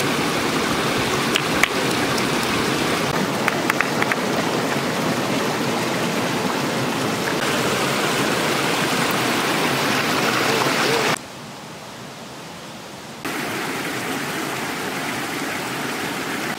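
Shallow stream water rushing over rocks, a steady hiss of running water. A few short clicks come through in the first few seconds, and the water sound drops quieter for about two seconds past the middle before returning.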